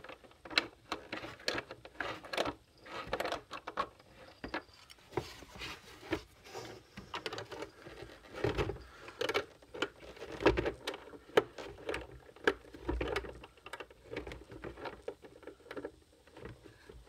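A nut and washers being turned by hand onto a bolt in a plastic fence charger case, with irregular small clicks, taps and scrapes of metal and plastic throughout.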